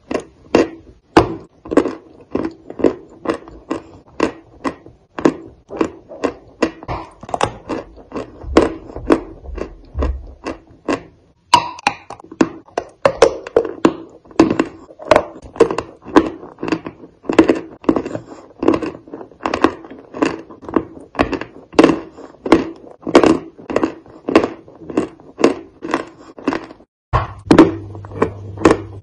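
Close-up chewing of soft Turkestanchiki cookies with a creamy white filling: steady mouth sounds at about two chews a second.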